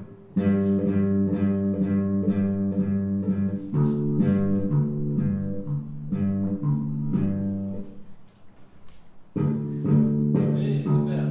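Electric bass guitar being plucked: a run of single notes that stops about eight seconds in and starts again a second or so later.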